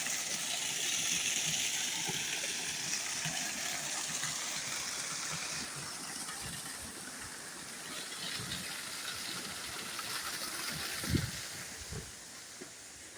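Water rushing over an old sawmill dam's waterfall as a steady hiss that fades gradually. A couple of low thumps come near the end.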